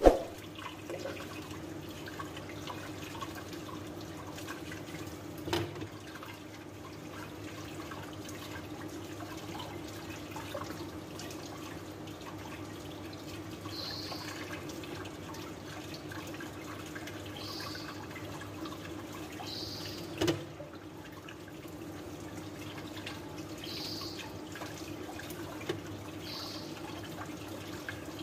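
Water running steadily from a kitchen tap and splashing over hands washing food in a stainless steel sink. A sharp knock right at the start and two softer knocks later.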